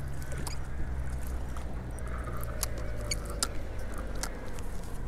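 Small spinning reel being cranked to wind in line, with scattered sharp clicks and a faint whirr, over a low rumble.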